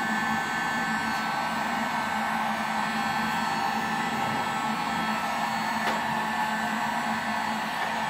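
Handheld electric heat gun running steadily, its fan blowing with a constant hum and whine, heating a pipe to soften it for bending.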